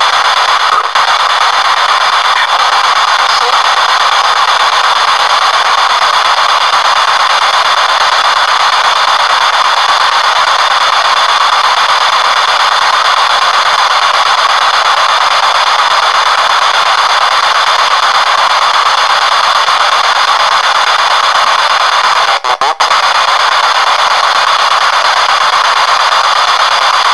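P-SB7 spirit box scanning radio frequencies through an external speaker: a continuous loud hiss of radio static with faint steady tones in it, cutting out for an instant twice late on.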